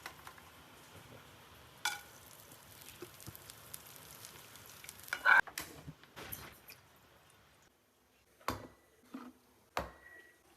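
Kitchen utensils knocking and clinking a few times over a faint steady hiss. The loudest clatter comes about halfway through, and the last two knocks each leave a brief ringing tone.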